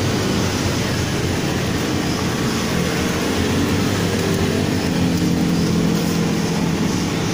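Steady low rumble of vehicle engine and traffic noise. About three seconds in, a droning engine tone comes in over it.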